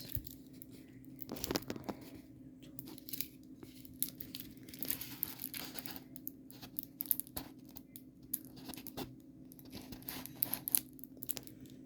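Plastic packaging of a diamond painting kit being handled and unfolded, crinkling and rustling irregularly with many small clicks.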